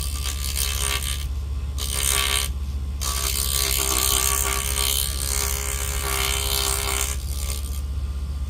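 Vevor mini benchtop wood lathe's motor running with a steady hum while a hand chisel cuts the spinning wood in three scraping passes, the last and longest lasting about four seconds.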